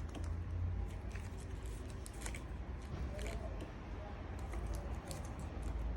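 Trading cards and foil packs being handled: a few soft scattered clicks and rustles over a low steady hum.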